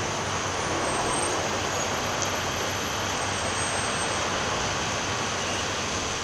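A steady, even rushing noise with no distinct events, like a rumbling vehicle or train bed.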